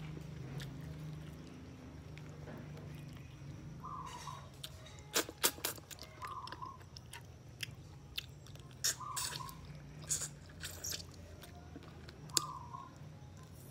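Close-up chewing with wet lip-smacks and mouth clicks as a person eats fish and rice by hand, the loudest smacks about five seconds in. A short call repeats four times in the background, every two to three seconds.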